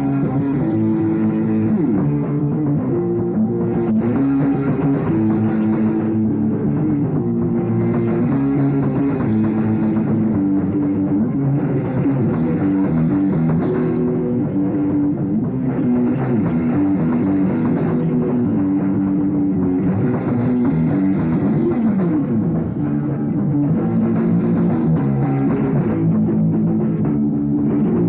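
A rock band playing live: distorted electric guitar chords and bass over a drum kit, with no vocals.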